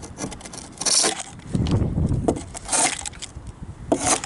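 Handling noise from a small metal box pulled up by a magnet: clinks and scrapes as it is worked at by hand, with three short scraping rasps about a second, nearly three seconds and four seconds in.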